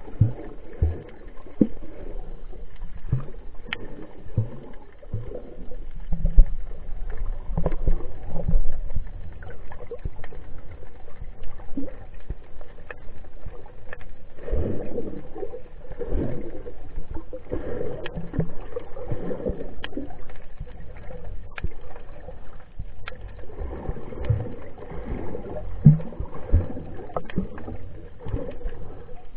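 Underwater sound picked up by a submerged camera as a snorkeler swims: muffled water sloshing and surging in uneven swells, with scattered small clicks and low knocks.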